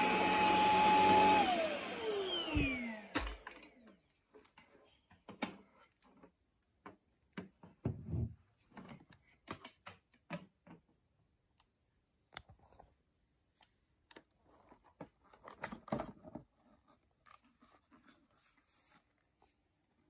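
Shark Stratos corded stick vacuum running, then switched off: its motor whine falls in pitch and dies away within about two seconds. It is followed by scattered plastic clicks and knocks as the dust canister is handled.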